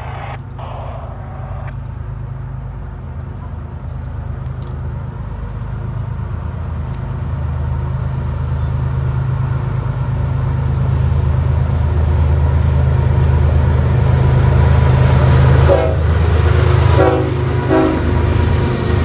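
Diesel freight locomotives approaching, their deep engine rumble growing steadily louder, with short blasts of the locomotive horn near the end.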